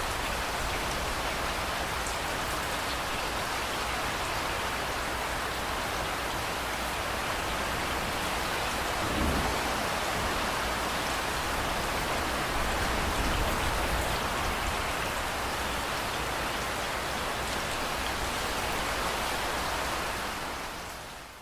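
Steady heavy rainfall, an even hiss of drops on surfaces, fading out in the last second.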